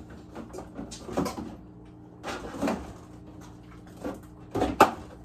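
Groceries being set down and shuffled into place: a few separate knocks and clatters, the loudest near the end, over a faint steady hum.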